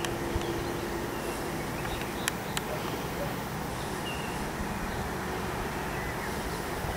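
Wind noise on the microphone outdoors: a steady hiss with a low flutter, and a faint steady hum that fades out a little over a second in. A couple of sharp clicks come around two and a half seconds in.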